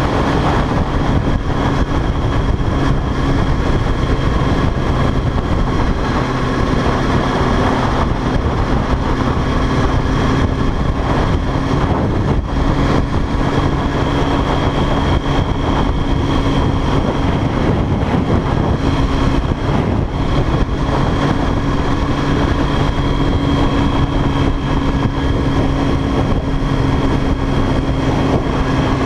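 Sport motorcycle's engine running steadily at cruising speed, heard from the rider's seat with a constant rush of wind and road noise over it.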